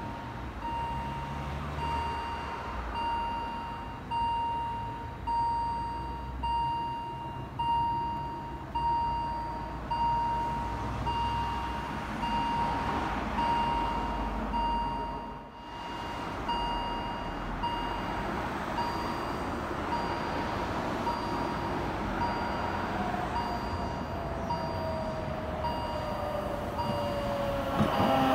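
Level-crossing warning beeper sounding a steady pulsing electronic tone while the barriers are down, over low road rumble. Near the end, a narrow-gauge electric train approaches, its motor whine falling in pitch as it nears.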